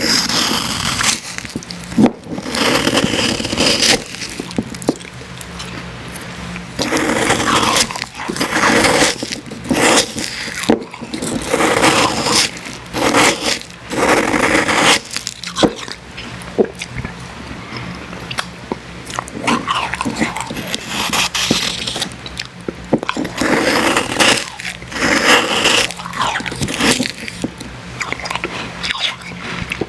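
Close-miked eating of icy Icee slush: crunching and chewing of the ice crystals, with scraping, in repeated bursts every second or two.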